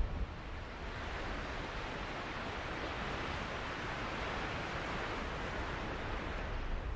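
A steady rushing hiss with no pitch or rhythm, swelling to its loudest in the middle and easing off near the end.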